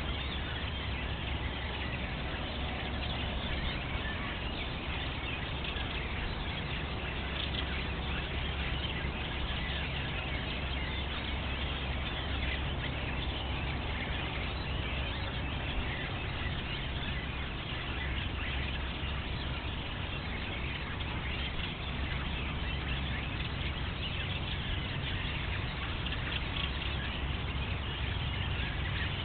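A chorus of small songbirds chirping and singing, many short calls overlapping, over a steady low rumble and hiss.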